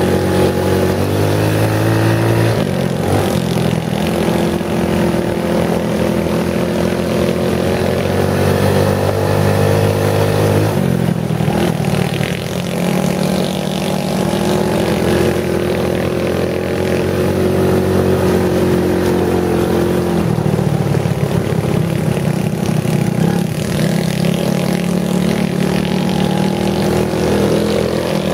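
Off-road buggy engine running while the buggy drives along a dirt trail, its pitch falling and rising several times as the throttle changes.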